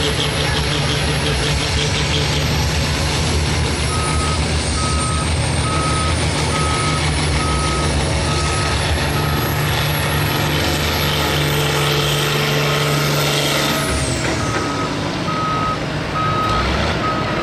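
International pro field pulling tractor's engine running hard under load as it pulls the sled, with a high whine over it. About fourteen seconds in, the engine comes off throttle and the whine falls away. Through most of it, a steady electronic beep repeats about twice a second.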